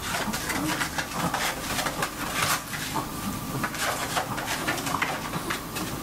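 Maltese puppy's paws rustling and scratching on disposable pee pads and the plastic tray as it moves about sniffing, giving irregular crackly scuffs throughout.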